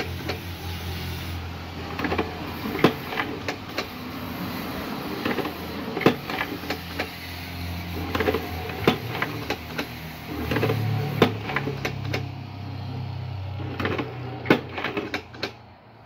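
Homemade semi-automatic cigarette filter-tube injector machine of 3 mm steel plate running: a steady low motor hum under irregular sharp metal clacks from its mechanism. The hum fades near the end.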